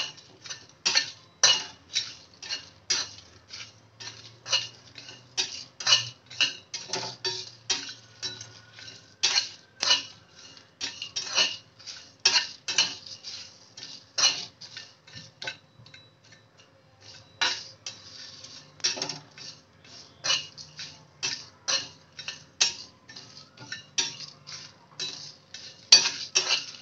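Metal spatula scraping and clacking against a small metal kadhai while stirring whole spices being dry-roasted, the dry spices rattling across the pan, about two strokes a second with a short lull about two-thirds of the way through.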